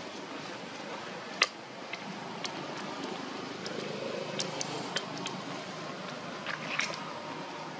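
Steady background noise with a sharp click about one and a half seconds in and a few fainter clicks and snaps scattered through the rest.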